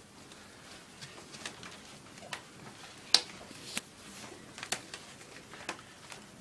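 Hands working open the knotted, tied neck of a snake shipping bag: scattered sharp clicks and light rustling, the loudest click about three seconds in.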